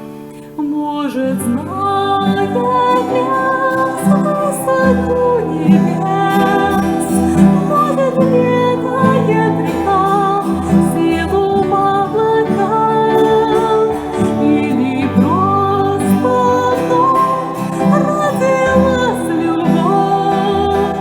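A woman singing a slow song in Russian to her own acoustic guitar accompaniment.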